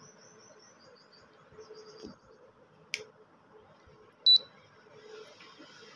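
A click, then a single short high-pitched electronic beep about four seconds in from the AC/DC ceiling fan's control-board buzzer, the beep the faulty fan gives instead of starting.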